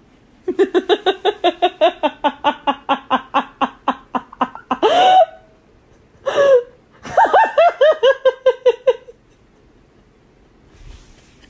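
A person laughing hard: a long run of quick ha-ha pulses, about six a second, then a higher rising cry, a short burst, and a second run of laughter that stops about nine seconds in.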